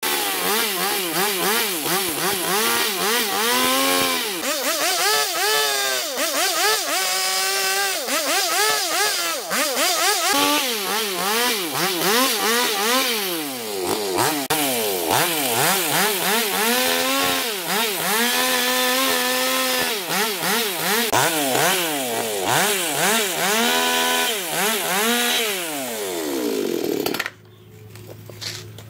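Chainsaw cutting through a dry wooden root, its motor revving up and down again and again as the chain bites into the wood, then stopping abruptly near the end.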